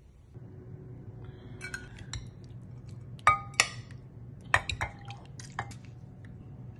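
A steel spoon clinking against ceramic bowls and plates as soupy potato curry is served: a few sharp, briefly ringing clinks in the second half, with fainter clicks before them.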